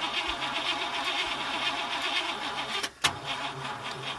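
Car starter cranking the engine with a fast fluttering churn for about three seconds without the engine catching. It ends with a sharp click about three seconds in: the car will not start, the kind of no-start that calls for a jumpstart.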